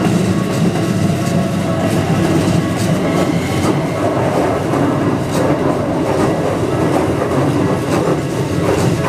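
Keikyu 2100-series electric train passing close by, its wheels clattering over the rail joints with a steady rumble.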